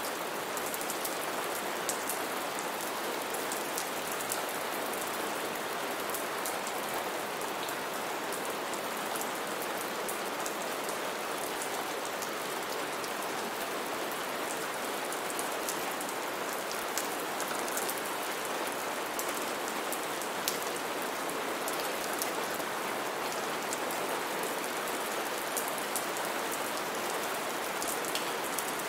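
Steady rain falling on a roof: a dense, even hiss scattered with many small drop ticks.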